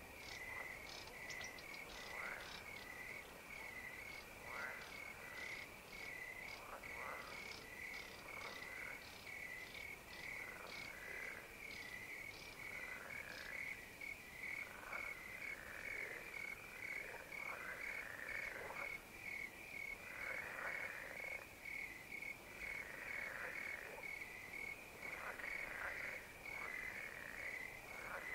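Crickets chirping in a steady, even rhythm, with frogs calling over them at irregular intervals, several calls close together at times.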